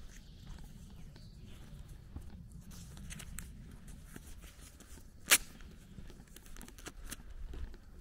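Footsteps on a dirt lane with a steady low rumble, and one sharp, loud crack a little past the middle.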